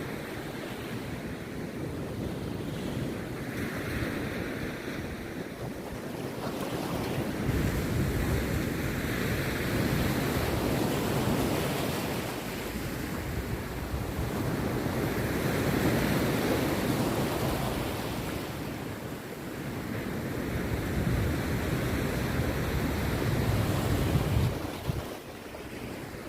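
Rough sea surf breaking on a beach: a continuous roar that swells and eases every few seconds as successive waves crash and wash back.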